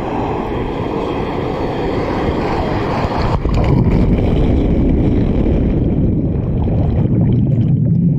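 Loud, steady rushing noise on the microphone, mostly low, of wind buffeting mixed with moving water; it grows louder about three and a half seconds in.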